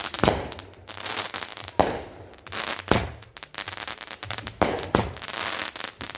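Consumer fireworks going off in a series of loud bangs, about five in all roughly a second apart, with crackling between the shots.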